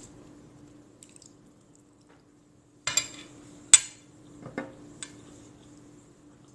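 A handful of sharp clinks of cutlery against a plate, the loudest about midway, over a faint steady hum.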